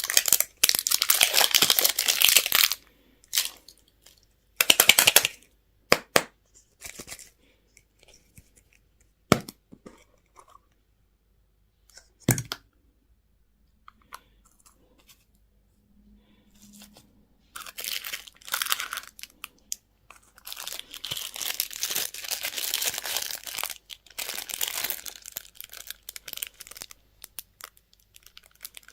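Candy wrappers being torn open and crinkled in bursts of rustling. Two sharp knocks sound a third of the way through, then a quiet stretch, then longer crinkling runs to the end.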